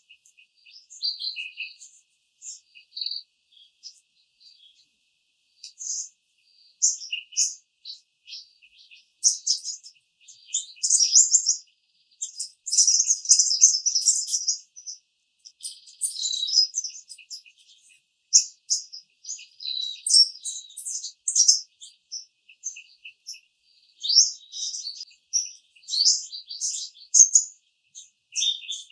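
Small songbirds singing, a busy chorus of high, overlapping chirps and trills that comes and goes in short phrases and is densest in the middle.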